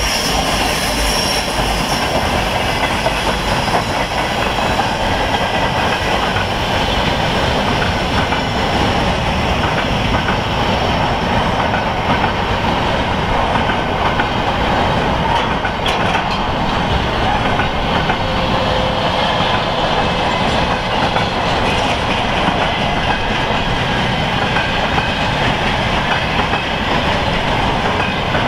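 Railway wagons rolling past, a steady noise of steel wheels on the rails, from a freight train of empty flatcars with a tank car.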